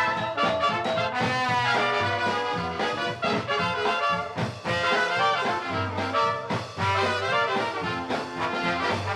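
Ragtime orchestra music with brass prominent, trumpets and trombones playing a lively tune.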